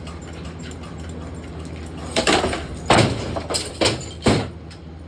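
About five sharp knocks and clunks in quick, uneven succession from about two seconds in, over a steady low hum.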